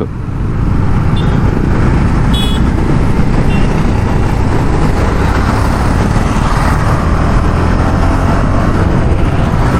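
KTM Duke 250 motorcycle being ridden at speed: its single-cylinder engine running steadily under a heavy rush of wind on the lavalier mic, with a couple of brief high-pitched tones about one and two and a half seconds in.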